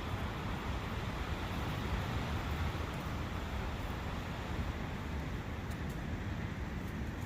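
Steady rushing of a forest brook mixed with wind, an even wash of noise with no separate events.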